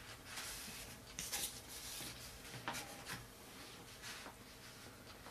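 Hands rubbing, sliding and pressing on a model glider's foam wing, with faint scratchy rustles and a few small knocks.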